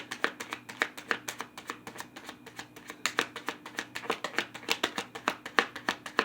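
Tarot cards being shuffled by hand: a quick, uneven run of soft clicks and slaps.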